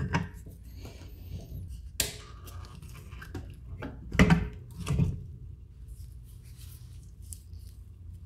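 Handling noise at a workbench: a few sharp knocks and clicks as a lure, a brush cup and a clamp are picked up and set down, the loudest two about four and five seconds in, over a steady low hum.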